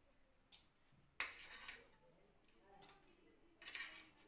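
Faint scraping and clinking of a metal spoon against a stainless steel mixing bowl and tray, a few short scrapes, the strongest about a second in.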